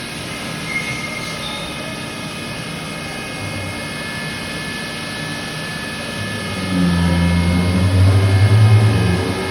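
Steady machinery noise with faint high whining tones. A louder low rumble swells up about two-thirds of the way through and eases off near the end.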